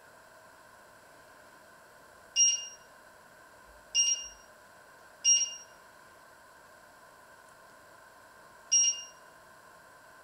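Touch-control beeps of a glass-top electric stove as its buttons are pressed: four short, high electronic beeps at uneven intervals, each cut off and fading quickly. A faint steady hum runs underneath.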